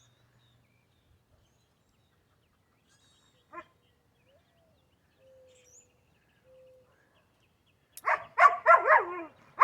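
Mostly quiet, with one faint click a little past the middle, then a quick run of short, loud animal calls near the end.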